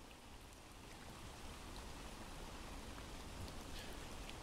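Steady faint hiss of a rain ambience recording played in the background, with a few faint clicks.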